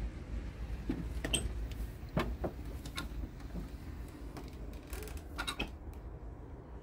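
Several short knocks and clicks of handling and climbing into a truck cab, over a steady low rumble.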